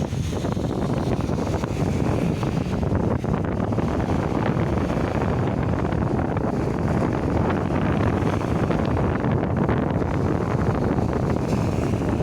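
Strong wind buffeting the microphone: a steady, loud low rushing noise.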